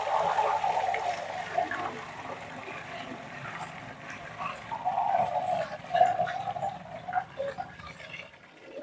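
Milk pouring in a thick stream from a steel milk churn through a steel strainer into a large aluminium cooking pot: a steady gushing splash that dwindles near the end as the churn empties.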